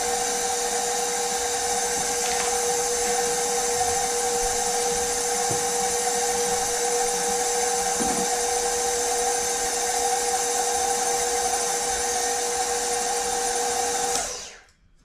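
KitchenAid stand mixer running at a steady speed, beating cookie-bar dough, with a steady motor whine. It is switched off and stops about 14 seconds in.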